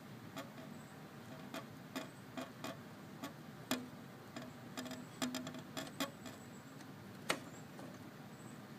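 Irregular light clicks and taps, about a dozen and a half, unevenly spaced, with two sharper ones near the middle and toward the end, over faint background hiss.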